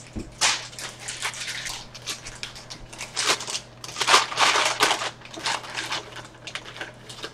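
Paper takeout bag rustling and crinkling as it is handled and opened, in repeated bursts, loudest about four to five seconds in.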